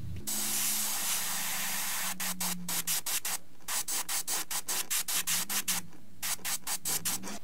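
Airbrush spraying paint through a stencil: one continuous hiss for about two seconds, then quick short bursts of spray, several a second, in three runs with brief pauses between.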